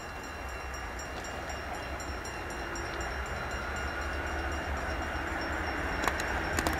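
MLW MX627 diesel locomotive hauling a freight train, its ALCO 251 V12 engine rumbling as it approaches and growing steadily louder, with a few sharp clicks near the end.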